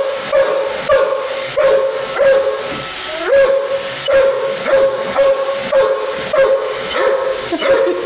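German shorthaired pointer whining in a steady string of high-pitched calls, each sliding up at its start and then held, more than one a second: the dog is unsettled by the running robot vacuum.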